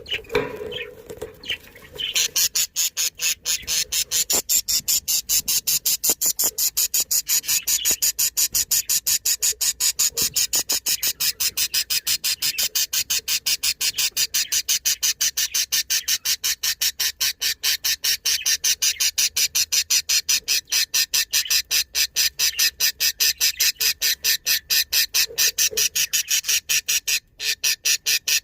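Female budgerigar giving a harsh, rapid call over and over, several sharp notes a second in a steady unbroken rhythm, starting about two seconds in and pausing briefly near the end.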